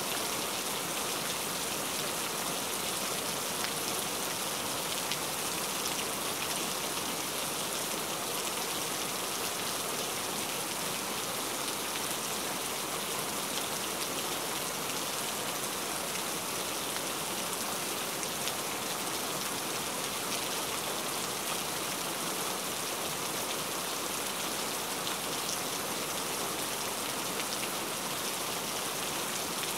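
Steady rain falling, an even hiss with occasional sharper drop ticks.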